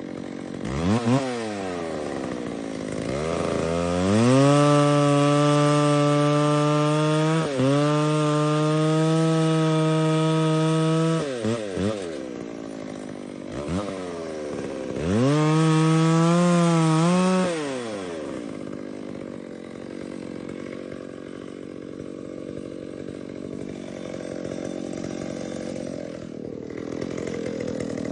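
A 60cc two-stroke chainsaw idling, then revved up and held at high speed for about seven seconds with a brief dip. It drops back to idle, is revved and held again for a couple of seconds, and settles to idle.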